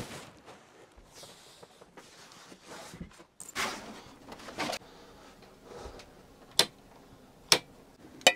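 Handling of a padded carry bag and a flat-screen TV: soft rustling a few seconds in, then two sharp clicks about a second apart near the end.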